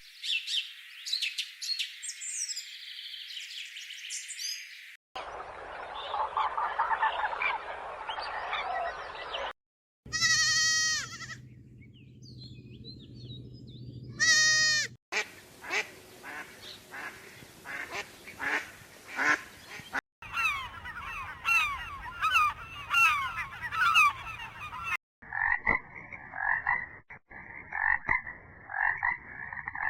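A run of different animal and bird calls, cut together as separate clips that change abruptly about every five seconds. They include loud pitched honking calls about a third of the way in and again near halfway, and later rapid repeated chirping calls.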